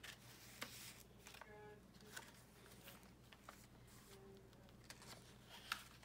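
Faint rustling and a few soft ticks of paper pages and card tags in a handmade junk journal being turned and handled, over low room tone.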